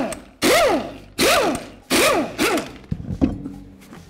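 Pneumatic impact wrench spinning lug nuts off a truck wheel in about four short whirring bursts, each rising then falling in pitch. A clunk about three seconds in.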